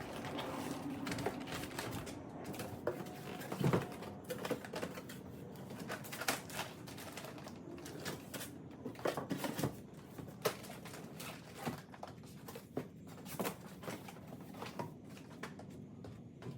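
A firework cake being worked out of its cardboard shipping case: irregular rustling, scraping and sharp knocks of cardboard and packaging being handled, with a louder cluster of knocks about four seconds in.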